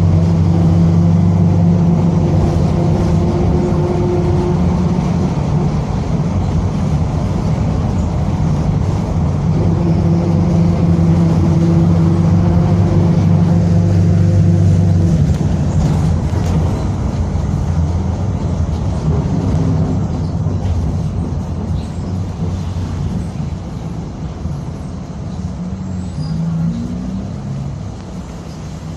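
Mercedes-Benz OF-1722M city bus under way, its diesel engine running with a steady drone and the growl of its noisy differential over it. The steady tones hold for the first half, then fade as the bus eases off, and it is quieter near the end.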